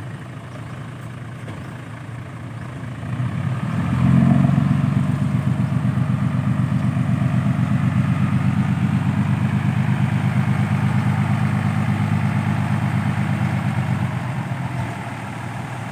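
Heavy diesel vehicle engine working under load. It runs low and quiet at first, swells to a loud, steady, fast-pulsing note about four seconds in, and fades near the end.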